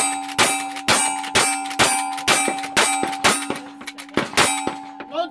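Rapid revolver shots, about two a second, each met by the clang of steel targets, which keep ringing in steady tones between shots.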